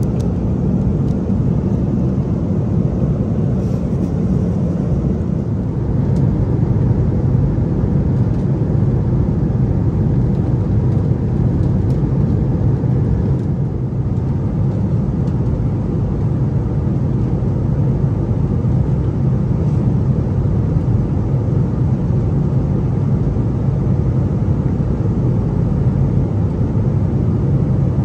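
Steady low drone of an Airbus A330-200 airliner cabin in cruise, engine and airflow noise heard from a passenger seat.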